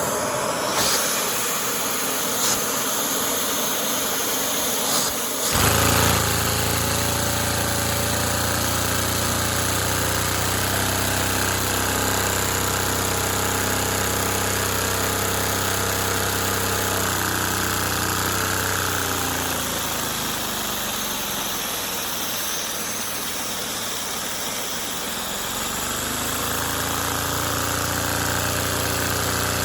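LEGO Technic V-twin engine model with a small flywheel, running with a steady mechanical whir and clatter. It grows fuller and louder about five seconds in, slows down past the middle, and speeds back up near the end.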